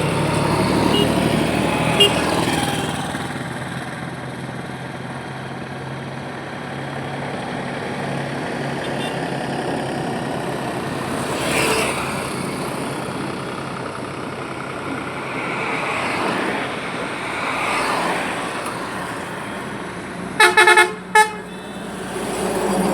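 Steady road traffic with vehicles passing one after another, and a vehicle horn honking twice near the end, a longer blast then a short one.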